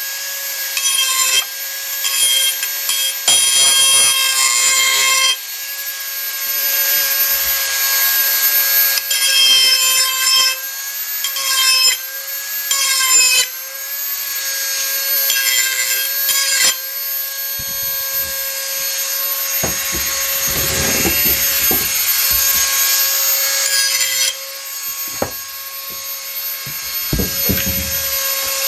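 Dremel 4000 rotary tool running at high speed with a steady whine, its grinding wheel grinding an edge onto a steel garden hoe blade. The grinding noise swells and drops every few seconds as the wheel is pressed on and eased off, and the whine dips slightly under load.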